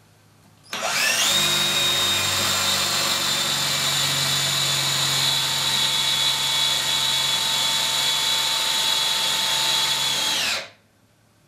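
Cordless drill spinning up and running steadily with a high motor whine, boring a hole into wood. It starts about a second in and stops near the end.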